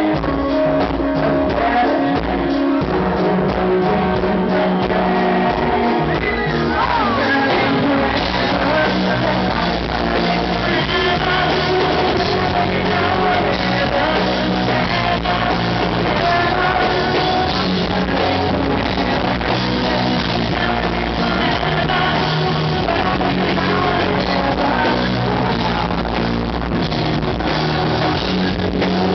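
Live rock band playing: a singer over bass guitar and a drum kit, loud and steady.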